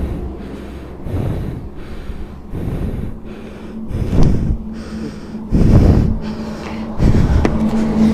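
Heavy, irregular breathing close to the microphone, with louder puffs about four, six and seven seconds in, over a steady low hum.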